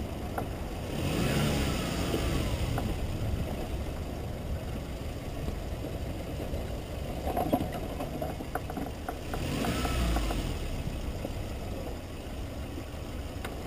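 Suzuki Grand Vitara 2.4's engine running as the SUV creeps down a rutted dirt track, heard from a camera mounted on the vehicle. The engine note swells and falls twice, about a second in and again around ten seconds in, with a few short knocks from the body and suspension over the ruts.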